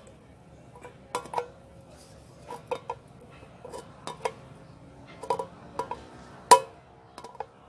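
Diagonal cutter pliers working around the rim of a tin milk-powder can: a series of sharp metallic clicks and clinks, the thin tin ringing briefly after each, the loudest snap about six and a half seconds in.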